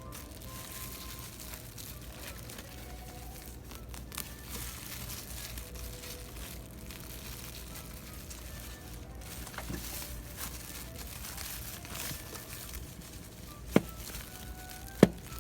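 Ongoing crinkling and rustling, with two sharp knocks a little over a second apart near the end.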